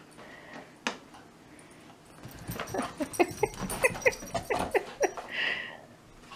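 Two miniature schnauzers playing over a cardboard paper towel roll: a single knock about a second in, then from about two seconds in a quick run of short whiny dog vocalisations for about three seconds.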